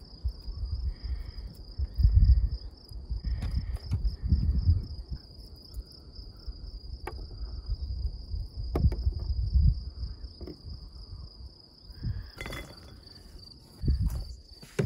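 Crickets trilling in a steady, high, finely pulsing tone. Low irregular rumbles and a few soft clicks come from raw onion slices being pulled apart into rings by hand.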